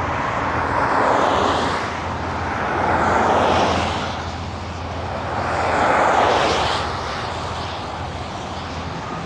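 Heavy diesel truck engines running with a steady low hum, and broad swells of noise about one, three and six seconds in as trucks move past.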